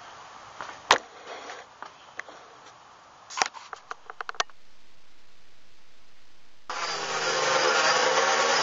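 Knocks and clicks of the camera being handled, then about two-thirds of the way in the DJI F450 quadcopter's four motors and propellers start suddenly and run loudly with a steady whine, spinning up for takeoff.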